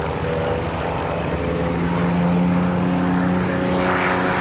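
Piston-engined propeller fighter plane flying past overhead, its engine a steady drone.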